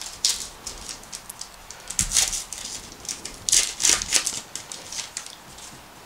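A baseball card pack wrapper crinkling and tearing open by hand, with the loudest rips about two seconds in and again around four seconds in.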